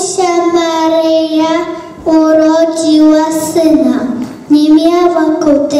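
A child singing a slow song in three phrases of long held notes.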